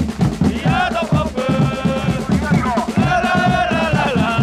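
Football supporters singing a chant together over a steady drum beat.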